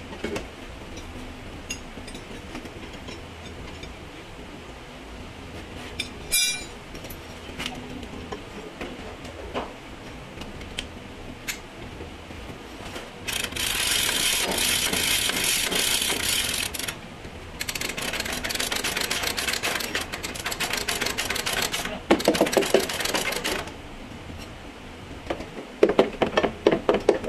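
Heavy steel pulling chain rattling and clinking as it is swung and hooked to a clamp on the vehicle's sill for a body pull. Scattered clicks come first, then two long stretches of dense rattling, then a quick run of clinks near the end.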